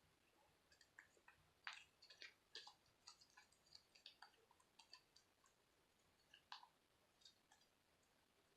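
Faint, irregular small clicks and pops of slime being handled, squeezed and stretched in the hands.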